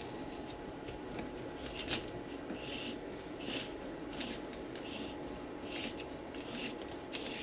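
Electrical cable being tugged through a CNC drag chain: a run of short, irregular scraping and rustling sounds, one or two a second, as the cable jacket slides through the chain links. A faint steady hum lies underneath.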